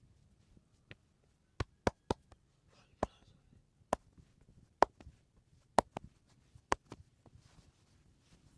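A run of sharp hand slaps from a head massage. A few come unevenly early on, then they settle into a steady beat of about one a second, with soft rubbing between them.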